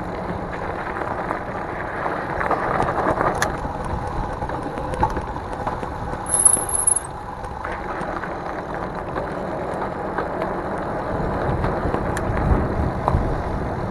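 Riding noise of a Mongoose Dolomite fat-tire e-bike at about 12 mph: the tires rolling over gravel and pavement and the bike rattling, a steady rumble with scattered small clicks. A brief high squeal about six seconds in.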